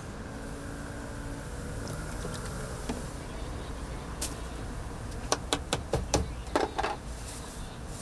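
A quick run of about eight sharp knocks and clatters a little past the middle, each with a short ring, over a steady low background hum.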